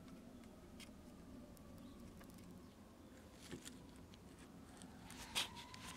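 Very quiet: a faint, distant emergency-vehicle siren holding a long tone that slowly falls in pitch, with a few small clicks and taps from soldering work on the radio board, the sharpest about five seconds in.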